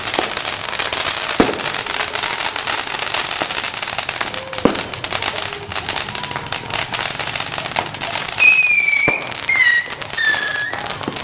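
Many firecrackers popping and crackling at once in a dense, continuous din, with a few louder bangs standing out. Near the end, a few short high whistles fall in pitch.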